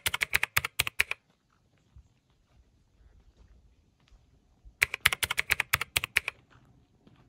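Computer keyboard typing sound effect: two quick runs of keystroke clicks, each lasting about a second and a half, one at the start and another about five seconds in.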